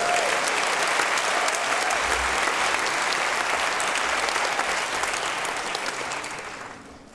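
Theatre audience applauding, a dense patter of many hands clapping that dies away near the end.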